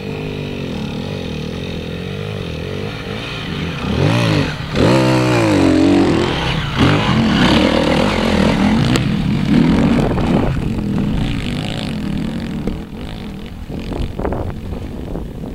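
Enduro dirt bike engines, among them a KTM EXC, revving up and down as the bikes ride a rocky trail. The engines are loudest from about four to ten seconds in, as a bike passes close.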